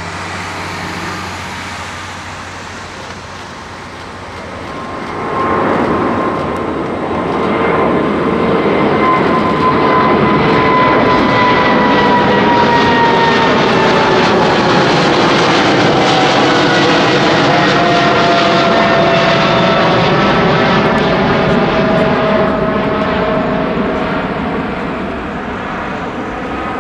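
Boeing 777F freighter's twin GE90 turbofan engines at takeoff climb thrust, flying over and away. The jet noise swells about five seconds in and stays loud, with whining tones that slowly fall in pitch as it passes, then eases off near the end.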